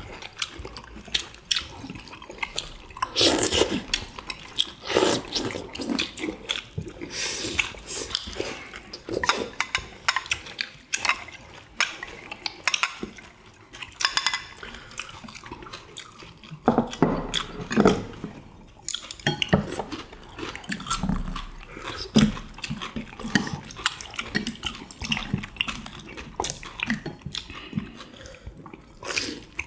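Eating sounds: wet chewing and slurping of tteokbokki in sauce, with chopsticks clicking against ceramic plates and bowls at irregular moments.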